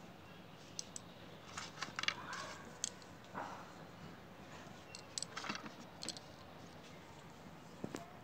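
Scattered light clicks and brief rustles of hands handling small pebbles and pressing them into potting soil in a plastic pot.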